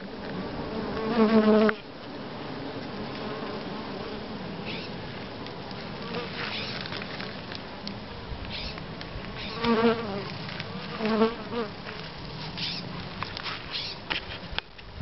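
A honey bee colony in a hollow log hive buzzing with a steady hum. Three times a bee flies close past the microphone with a louder, pitched buzz: once about a second in, and twice about two-thirds of the way through.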